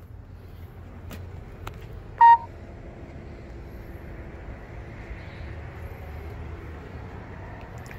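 A single short, high electronic beep about two seconds in, over a steady low rumble and a couple of faint clicks.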